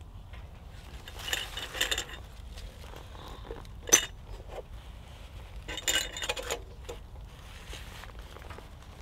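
Metal hurricane lantern being handled: its wire bail and frame rattle and clink in two short bursts, with one sharp metallic click about four seconds in.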